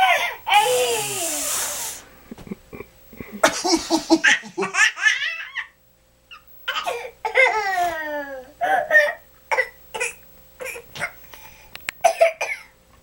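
A baby's belly laughs in many short, repeated bursts, set off by fake coughs. There are a couple of harsh cough-like bursts at the very start.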